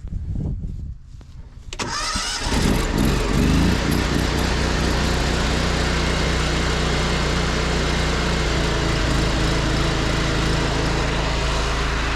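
Pressure washer's gas engine starting about two seconds in, then running steadily at three-quarter speed.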